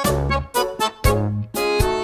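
Background music: an upbeat swing-style tune with a bouncing bass note about twice a second.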